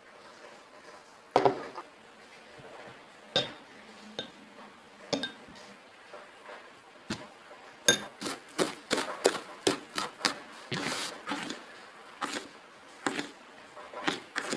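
A fork clinking and tapping against a bowl while a banana is turned in breadcrumbs: a few single clinks, then a quick run of taps about eight seconds in and a brief scrape.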